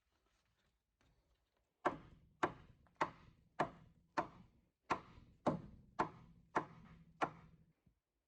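About ten evenly spaced knocks, a little under two a second, each with a short ring after it.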